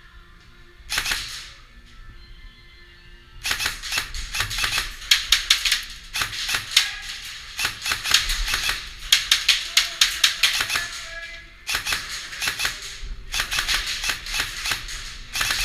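Airsoft guns firing in rapid bursts of sharp clicks: one short burst about a second in, then long strings of fire with a brief break near the end.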